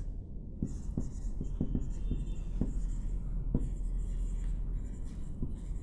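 Marker pen writing on a whiteboard: a run of short, irregular strokes as letters are written.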